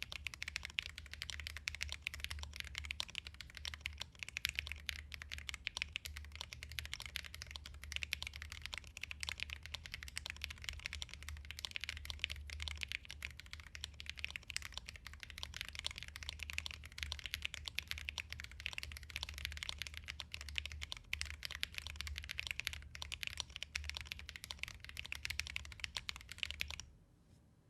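Continuous fast typing on a custom 40% mechanical keyboard with lubed Holy Panda tactile switches, a stainless-steel (Inox) plate and PBT keycaps: a dense stream of key clacks that stops abruptly near the end.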